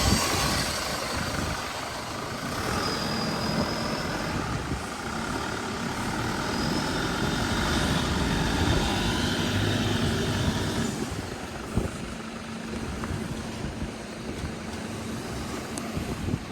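Toyota Land Cruiser V8 engine running as the four-wheel drive is recovered from soft beach sand. A steady low hum joins it about ten seconds in.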